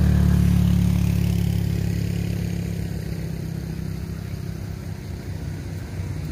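Engines of rice-harvesting machinery running with a steady low drone that fades gradually as the machines pull away.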